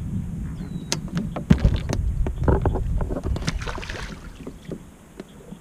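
Wind buffeting the microphone, with sharp clicks and knocks of handling in a kayak as a small bass is unhooked. About three to four seconds in comes a water splash as the fish is let go over the side.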